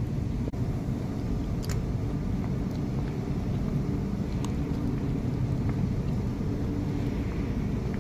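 Steady low rumble with a faint hum, and a few faint clicks.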